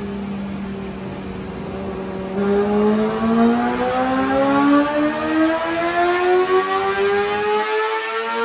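Yamaha R6 inline-four sport-bike engine with a full Akrapovic exhaust running on a dyno. It holds a steady high rpm, then about two seconds in it gets louder and revs up in one long, smooth rising pull.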